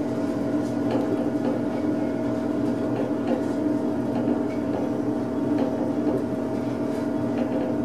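Otis traction elevator car travelling down, heard from inside the cab: a steady hum with a couple of constant tones and a few faint ticks.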